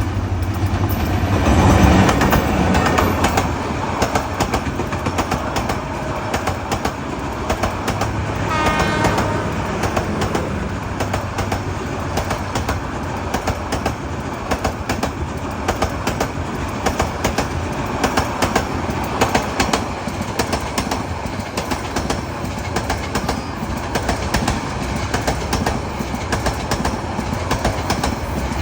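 Cox's Bazar Express passenger train of Bangladesh Railway running on the track, its wheels clattering steadily over the rails. A brief high-pitched tone sounds about nine seconds in.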